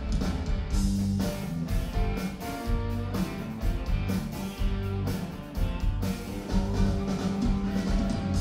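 Live rock band playing: electric guitars and bass over a drum kit, a steady driving beat with sustained guitar notes.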